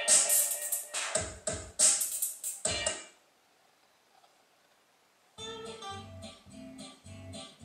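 Music played through Magnat Monitor Supreme loudspeakers for a sound check: a track with sharp, punchy drum beats cuts off about three seconds in. After two seconds of near silence, a guitar-led track with a steady bass line begins.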